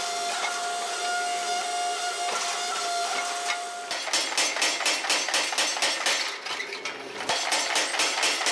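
Hydraulic forging press running with a steady whine. About four seconds in, a power hammer takes over, striking hot steel in a rapid even run of blows, about four a second, to draw out the pickaroon's spike. The blows stop for about a second and then start again.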